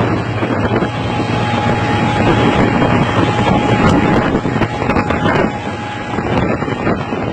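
Heavy-equipment diesel engine running steadily, with wind buffeting the microphone.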